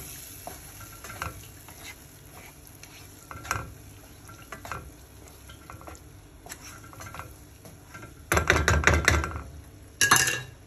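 Wooden spatula stirring and scraping through chicken and tomato masala in a nonstick frying pan, with light sizzling. A little after eight seconds comes about a second of loud, rapid knocking against the pan, then another sharp clatter just after ten seconds.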